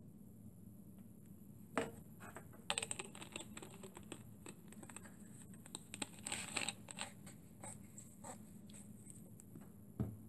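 Small metal items being handled on a wooden workbench: scattered clicks, taps and light scrapes, with a louder knock near the end, as a sheet-metal fuel tray and a tin of Sterno fuel are moved and set down.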